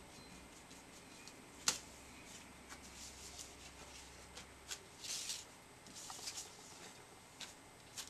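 Paper and card being handled and pressed down by hand: faint rustling with scattered light taps and clicks, a sharper tap about two seconds in and a short rustle about five seconds in.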